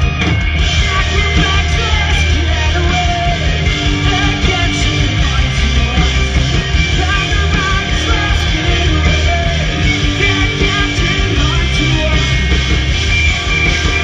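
Rock band playing live through a PA: loud electric guitars, bass and drums, with a man singing.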